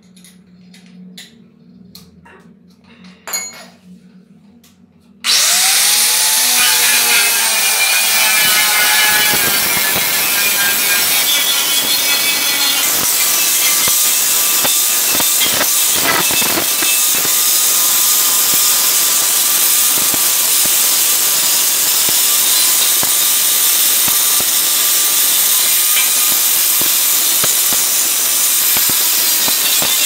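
A few sharp clicks as a disc is fitted to a handheld angle grinder. About five seconds in, the grinder switches on suddenly, its motor whine rising as it spins up. It then grinds the rusted steel hoe blade steadily and loudly.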